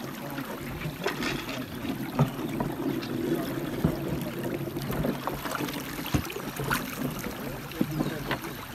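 Shallow river water rippling and splashing against the side of a moving canoe. Several small sharp knocks are scattered through it.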